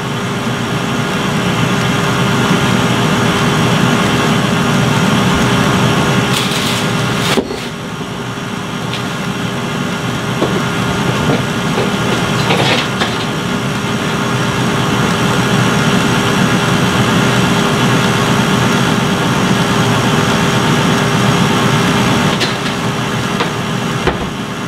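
KitchenAid stand mixer running steadily, its beater churning thick cream cheese batter in a stainless steel bowl. A short dip in the sound comes about seven and a half seconds in.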